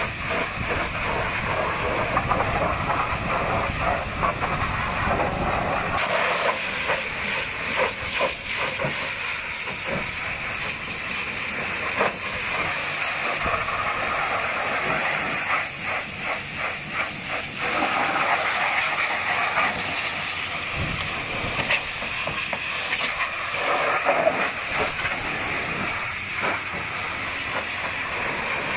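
High-pressure washer jet blasting mud off a truck's chassis and wheels: a steady hiss of spray with spattering as the stream hits metal and tyres. A low rumble under the hiss drops away about six seconds in.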